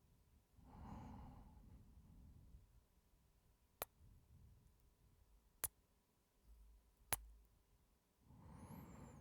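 A man's heavy breath close to the microphone, then three sharp kisses about a second and a half apart, then another heavy breath near the end.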